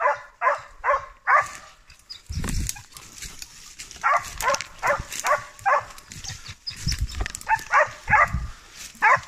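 Scent hound baying on a wild boar trail: runs of short, repeated bays in three bursts, with a few low thumps between them.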